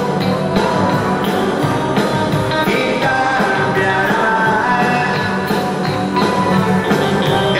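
Live band music: electric guitars and drums playing a song, with a man singing into a microphone in parts.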